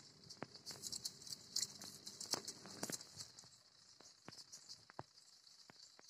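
Soap suds in a top-loading washing machine's tub crackling and popping softly: a faint fizz with scattered small clicks.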